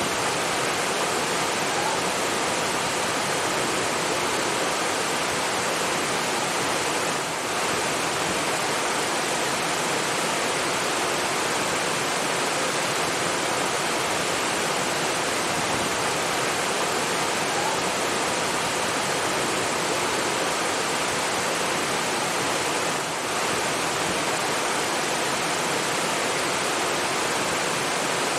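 Steady rushing of falling water, an even wash of noise with two brief dips in level, about 7 and 23 seconds in.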